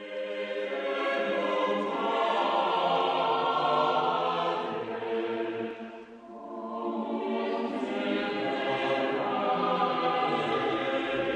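Choral music with a choir singing sustained chords. It fades in at the start, dips briefly about six seconds in, then swells again.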